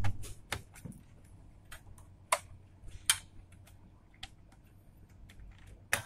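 Scattered sharp clicks and knocks of hands handling the parts of a Dell OptiPlex 7010 small-form-factor desktop while reassembling it: cables being pushed into place and the drive tray being worked back down. The clicks come irregularly, about seven in all, the loudest at the start and just before the end.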